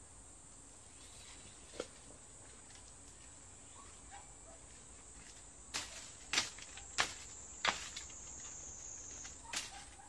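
Several sharp cracks of a hand tool chopping a thin bamboo stalk, one about two seconds in and five more bunched in the second half, over a steady high-pitched drone of insects.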